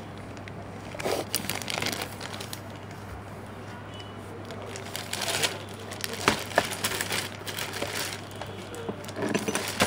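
Packaging crinkling and rustling in irregular bursts as an extension cord is unboxed and handled, over a steady low hum.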